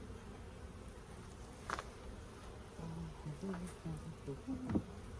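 Honeybees buzzing around an open hive, with several short buzzes from bees flying close past in the second half. A couple of light knocks, the louder near the end.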